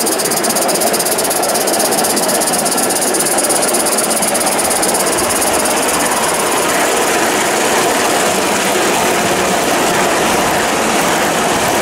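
Live-steam Accucraft Southern Pacific F4 2-10-2 model locomotive running under steam, a rapid even chuffing with steam hiss. The chuffing fades about halfway through into the rolling rumble of its goods wagons passing on the track.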